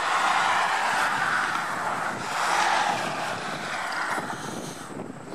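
Road traffic passing: a hiss of tyre noise that swells twice and fades away toward the end.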